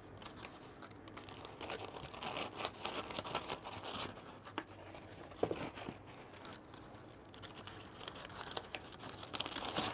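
Paper coffee filter rustling and crinkling as it is handled and opened out by hand, with a few small irregular ticks.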